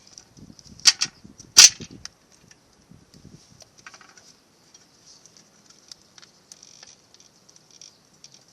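Small metal battery hardware and tools being handled: two sharp metallic clicks about a second in, then faint light ticking and scraping.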